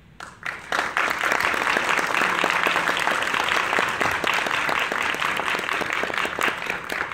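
Audience applauding, starting within the first second with a dense patter of many hands clapping and fading near the end.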